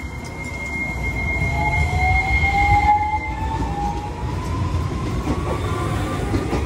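Hiroshima Electric Railway 5100-series Green Mover Max low-floor tram running past along the platform, close by. Its wheels rumble and its motor whines, the whine slowly rising in pitch, while a steady high whistle stops about three seconds in. Strong wind buffets the microphone throughout.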